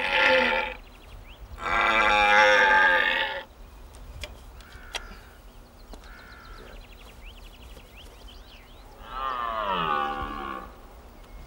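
Tube deer call blown to imitate a red deer stag's rutting bellow. Two long, loud bellows come in the first three and a half seconds. A third bellow comes near the end and falls in pitch as it ends.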